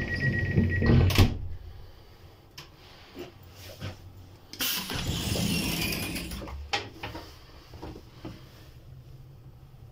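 A high steady beep ends just under a second in and a loud thump follows, like a door shutting. About four and a half seconds in, after its green button is pressed, the train's automatic sliding interior door runs open for about two seconds, followed by a few light clicks.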